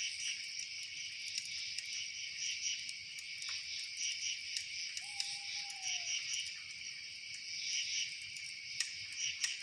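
A dense chorus of crickets chirping in a steady pulsing mass, with a few sharp clicks and one faint arched whistle about five seconds in.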